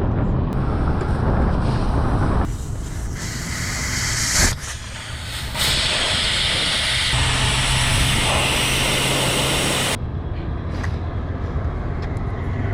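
Air hissing out of a car tire through the open valve stem, its valve core removed to deflate it before sealant is added. The hiss swells a couple of seconds in, dips briefly near the middle, and cuts off sharply near the end, over a steady low hum.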